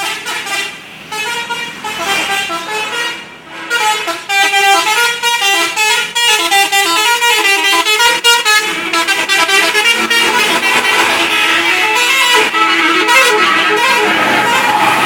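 Bus's multi-tone musical horn playing a tune of changing notes, loud and continuous, the notes coming faster from about four seconds in.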